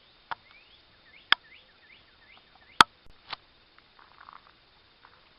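Four sharp clicks and knocks of a handheld camera being handled, the loudest nearly three seconds in. Between them runs a string of short rising chirps, about two a second.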